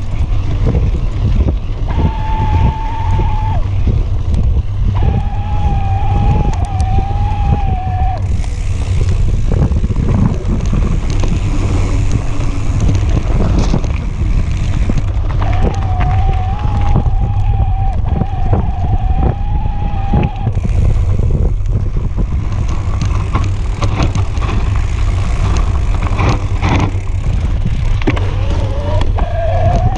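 Electric mountain bike riding a dirt and gravel trail: a constant low rumble of wind and trail vibration, with tyre crunch and frame rattles. The electric drive motor's whine comes and goes, steady in pitch, for a few seconds at a time.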